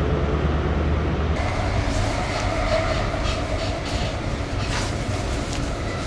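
Train running: a strong low rumble, then about a second in the sound changes to the steady noise of a passenger train carriage under way, with scattered light clicks and rattles.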